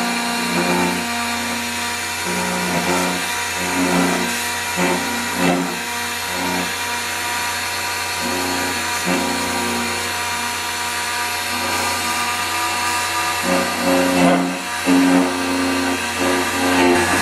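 Multifunction key duplicating machine running, its cutter drilling dimples into the second side of a multilock key blank. A pitched cutting tone comes and goes in short, repeated passes over the steady motor hum.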